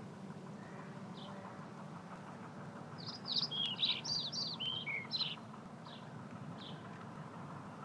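A small songbird sings one quick, varied phrase of high chirping notes about three seconds in, with single chirps before and after it, over a steady low background noise.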